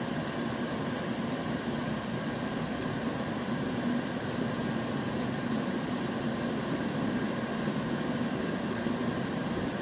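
Electric kettle coming to the boil: a steady rushing rumble of water starting to boil. Under it is the steady hum of the power station's cooling fans, running under the kettle's heavy load.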